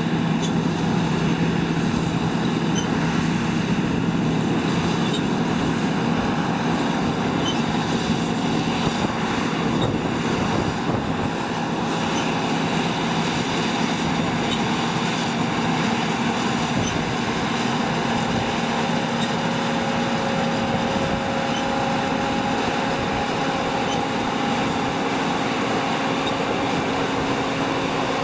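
Heavy diesel farm machinery running steadily under load, a continuous engine drone with several held whining tones over it. The low engine note shifts upward slightly about twelve seconds in.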